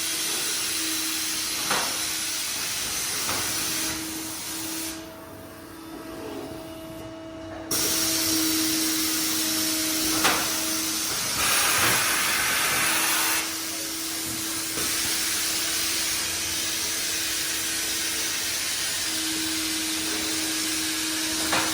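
Uniloy UMS 16D extrusion blow moulding machine running a dry cycle, moving through its strokes without plastic: a steady hum under continuous hissing, with a few sharp clacks. The hissing drops away briefly and then comes back louder for several seconds in the middle.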